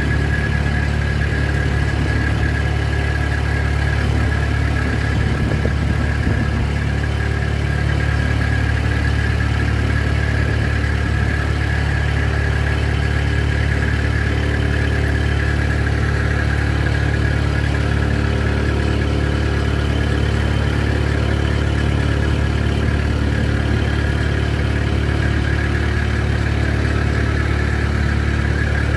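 A small river boat's engine running steadily at constant speed, a deep even drone that does not change.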